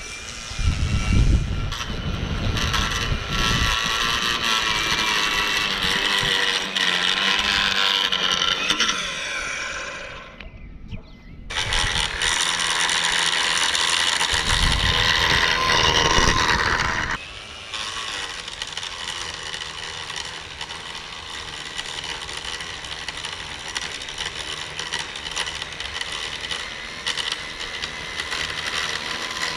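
EGO 56V cordless power head with its 8-inch edger attachment running, the blade cutting along a lawn edge. It stops about ten seconds in, starts again a second or so later, and from about seventeen seconds on runs noticeably quieter.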